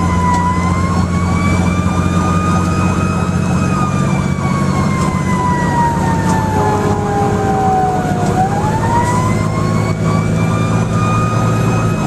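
Fire engine siren wailing: it rises about two seconds in, falls slowly for several seconds, then climbs quickly back up near the end. Under it runs the fire truck's engine with a steady low drone.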